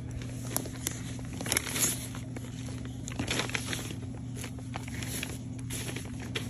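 Fabric rustling and soft handling knocks as a baby's clothes are pulled and rearranged by hand, a little louder about one and a half to two seconds in, over a steady low hum.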